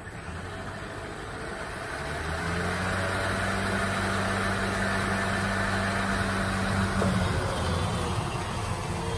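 Brushless electric motor of an RC snowblower spinning up over the first two seconds, then running with a steady hum. About seven seconds in the sound shifts as the blower starts throwing snow.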